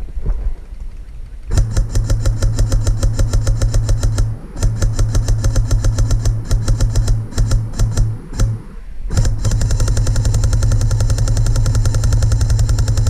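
Electric airsoft rifle firing on full auto: fast, even shot clicks over the steady whine of the gearbox motor. A long burst comes about a second and a half in, then several short bursts, then another long unbroken burst from about nine seconds in.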